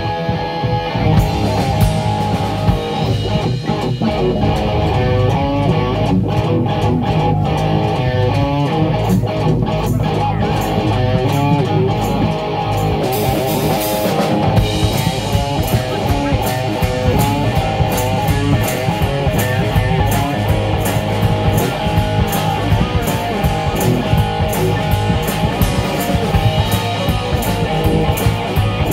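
Loud rock music with electric guitar and a drum kit, the cymbals keeping a steady beat from about halfway through.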